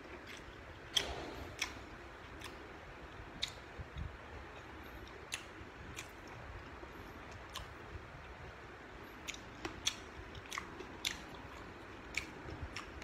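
Chewing and biting into crisp raw vegetables, cucumber and yardlong beans, with irregular sharp crunches, the loudest about a second in.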